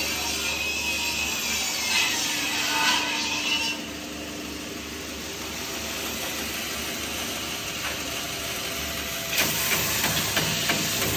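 Vintage sanding machine running with wood being sanded on it. The sound drops to a quieter run about four seconds in, then turns louder and rougher with rapid ticks about nine seconds in.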